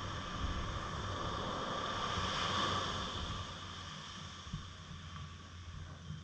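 Quadcopter drone's propellers whining steadily, swelling louder about halfway through and then fading, with wind buffeting the microphone.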